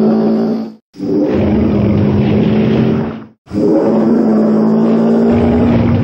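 Dinosaur roar sound effect for a long-necked sauropod: a deep, drawn-out bellow with a steady low tone, played three times in a row with short silent gaps about a second in and past the midpoint.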